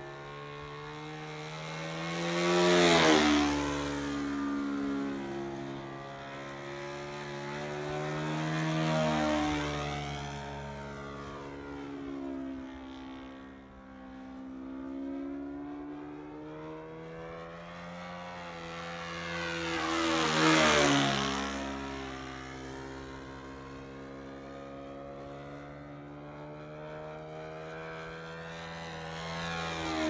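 Saito FG-21 single-cylinder four-stroke gasoline engine driving a 15x8 propeller on an RC Christen Eagle biplane in aerobatic flight, its pitch rising and falling with throttle through the manoeuvres. Two close passes, about three seconds in and about twenty seconds in, are much louder, with the pitch dropping as the plane goes by.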